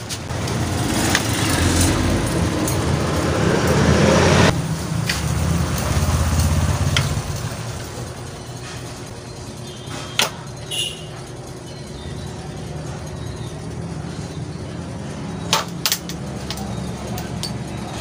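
A motor vehicle engine running steadily, loudest over the first few seconds and fading by about seven seconds in. Later, a few sharp clicks as the plastic and metal clamp head of a bike repair stand is handled.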